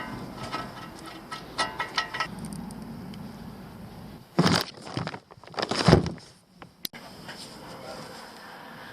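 Metallic clinks and handling noises, like tools or parts being picked up and set down, with two louder knocks about four and a half and six seconds in and a sharp click just before seven seconds.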